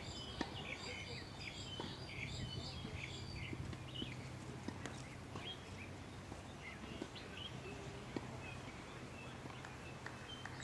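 Small birds chirping in quick, busy calls for the first few seconds, then only now and then, over a steady low hum of outdoor background noise.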